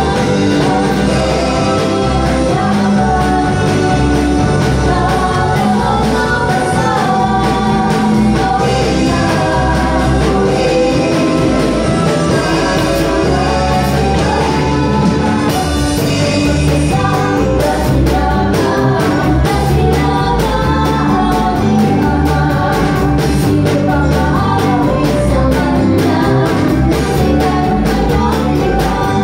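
Live worship band playing a Tagalog praise song: women's voices singing through microphones over drum kit, electric bass, keyboard and guitar. The cymbals play more densely from about halfway through.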